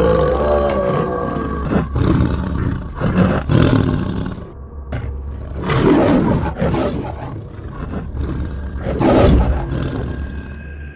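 Tiger roaring and growling in several separate bouts, the loudest about six and nine seconds in.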